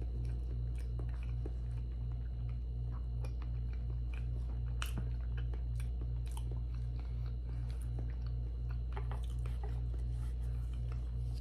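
Close-miked chewing of raw salmon sashimi dipped in masago, with soft, wet mouth clicks scattered throughout over a steady low hum.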